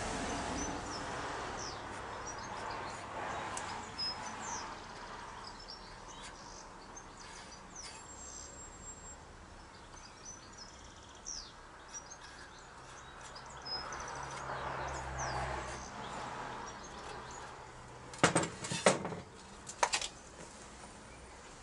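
Small birds chirping in the background, short high calls scattered throughout. Near the end a quick cluster of sharp knocks and clatters as the metal rocker cover is shifted on the bench.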